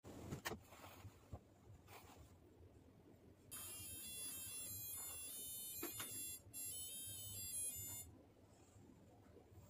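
Phone alarm ringtone playing a high electronic melody for about four and a half seconds, starting a few seconds in and cutting off abruptly near the end. A few faint knocks come before it.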